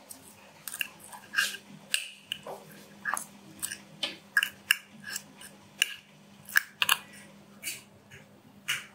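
Metal forks clinking and scraping against a ceramic plate as boiled chicken breast is pulled apart: a quick, irregular run of sharp clicks, about two or three a second.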